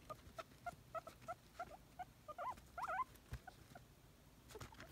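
Guinea pig wheeking: a run of short squeaks about three a second, then a few longer squeals that rise and fall about two and a half seconds in. This is the excited begging call of a guinea pig hoping for a celery treat. A few faint clicks come near the end.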